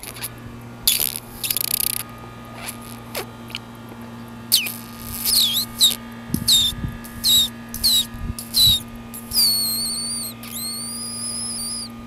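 High-pitched squeaky calls made by a person to call a ground squirrel: two short hisses, then a run of about seven short squeaks that each fall in pitch, then two long wavering squeals near the end.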